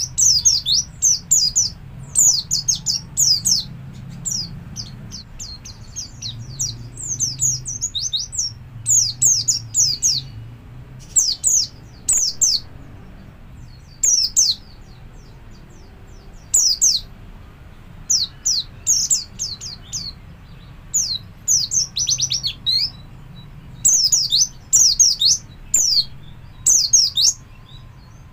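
White-eye (pleci) singing its fast 'ngalas' song: clusters of quick, high, down-slurred chirps, with a short pause every second or two.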